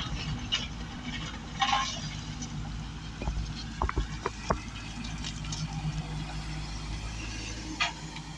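Sany SY225 excavator's diesel engine running steadily, with a few short, sharp knocks around the middle.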